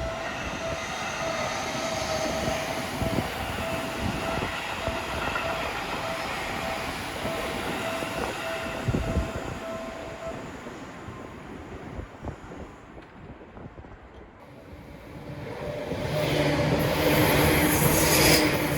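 Seibu Shinjuku Line electric train running through the level crossing, a steady rumble of wheels on rail that fades away about two-thirds of the way through. Near the end another train approaches and grows loud.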